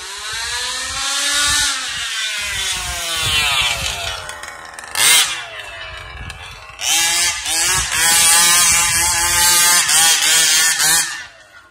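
HPI Baja RC buggy's small two-stroke gas engine revving up and down as it is driven, with a short loud burst of throttle about five seconds in and a longer run at full throttle that cuts off near the end.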